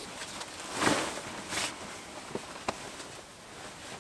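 Bivy bag fabric rustling as it is handled and pulled over a sleeping quilt, with a few small clicks and knocks.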